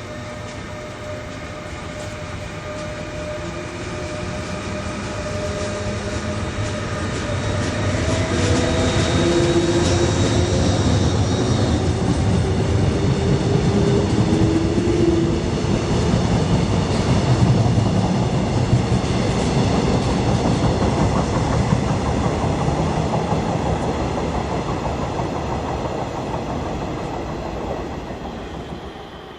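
A train running past on the rails: a heavy rumble with some clatter and several steady whining tones. It builds over the first several seconds, stays loud through the middle, eases a little, then cuts off suddenly at the end.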